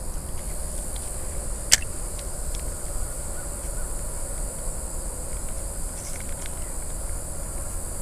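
Steady high-pitched chorus of crickets or similar insects, over a low steady rumble, with one sharp click just under two seconds in.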